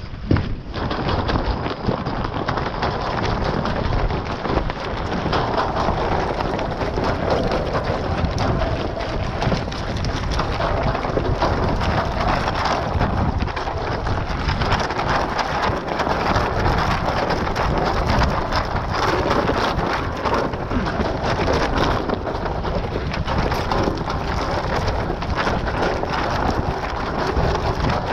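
Steady rushing noise with a constant crackle, from wind buffeting the microphone and water rushing along the hulls of a Taipan 5.7 beach catamaran under sail.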